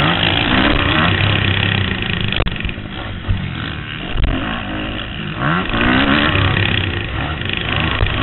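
Kawasaki KX250F four-stroke single-cylinder motocross engine under hard riding, revving up and down repeatedly as the rider works the throttle and gears along the dirt track.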